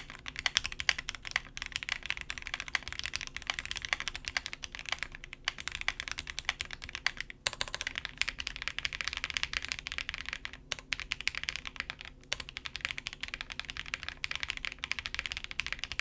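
Typing on a Zoom 65 mechanical keyboard fitted with stock, unlubed Akko Jelly linear switches on a polycarbonate plate with no PE sheet, under GMK keycaps. It is a fast, steady run of keystroke clacks with a few short pauses.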